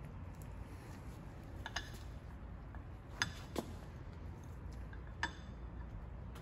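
A few short, sharp metallic clinks from a steel valve adapter being handled, during fitting of its new O-ring, over a low steady room hum.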